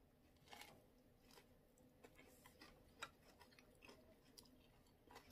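Faint chewing of a bite of crispy shredded carnitas meat in a soft tortilla: scattered soft crunches and mouth clicks.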